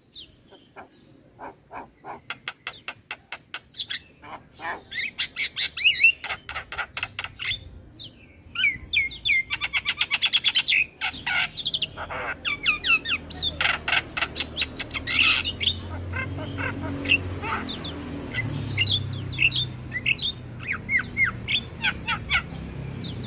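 Javan myna calling and singing: fast chattering runs of short, harsh chips mixed with sharp whistled and squawking notes, with a low rumble building in the background from about halfway.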